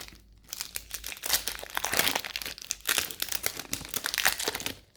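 Foil booster-pack wrapper crinkling as it is handled, a dense run of quick crackles.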